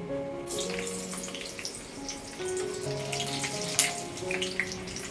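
Whole green chillies sizzling and crackling in hot oil in a kadhai. The sizzle starts about half a second in, with sharp pops throughout, the loudest near the end. Background music plays over it.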